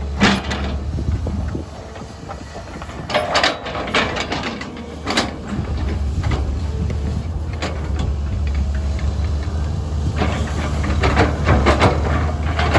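SANY SY205C excavator's diesel engine running steadily under work, with short bursts of clatter and hiss every few seconds.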